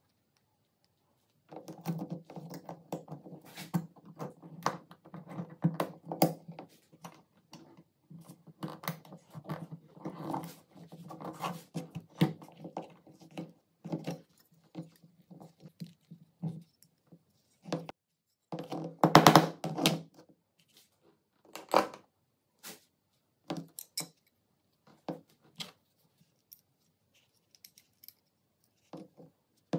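Small steel parts of an MP5 trigger housing being handled and fitted together by hand: a steady run of clicks, taps and light metal scrapes, with a louder clatter about two-thirds of the way through, then only occasional clicks.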